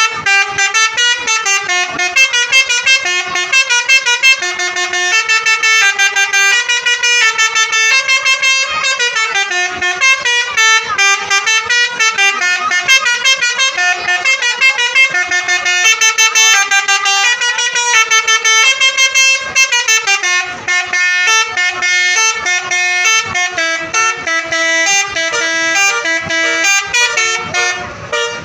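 Bus telolet musical horns playing quick, loud tunes, note after note with several notes changing each second, often two or more horn tones sounding together.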